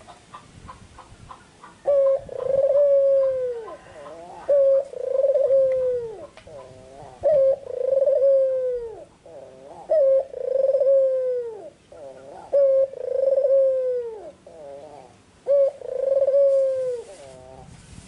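White, red-eyed Barbary (ringneck) dove cooing six times, one call about every two and a half seconds. Each coo is a brief note followed by a longer note that falls away at its end.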